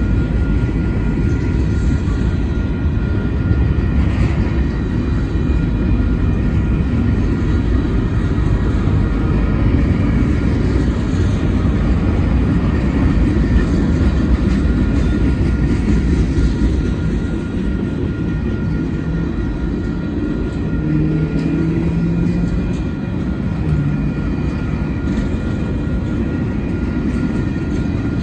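Union Pacific mixed freight train's cars (covered hoppers, boxcars, tank and coil steel cars) rolling past close by, with a steady, loud rumble of steel wheels on rail. A faint, steady high-pitched tone runs underneath.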